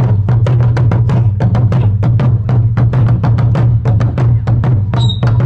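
Several large tack-headed barrel drums struck with sticks in a fast, steady rhythm, several hits a second over a deep, sustained drum resonance.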